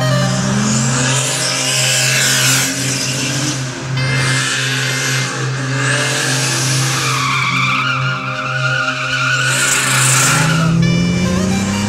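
Turbocharged 800 hp BMW M3 sliding with its tyres squealing and skidding over the engine note. The engine revs up near the end.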